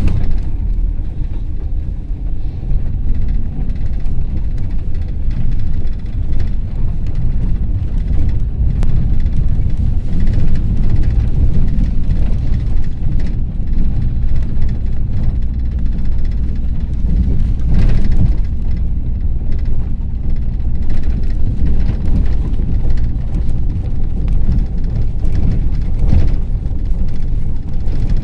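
Ford Transit minibus driving, heard from inside the cabin: a steady low engine and road rumble, with occasional brief knocks and rattles from the body.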